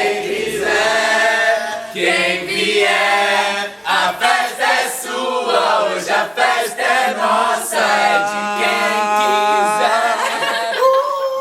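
A group of voices singing together unaccompanied, ending on a long held note near the end.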